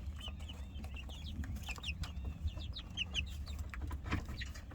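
A small flock of chickens clucking and giving many short, high chirps, with a steady low rumble underneath.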